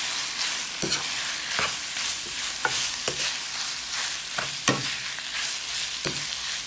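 Ground meat frying with onions and garlic in a nonstick wok, a steady sizzle, while a wooden spatula stirs it and knocks against the pan at irregular intervals.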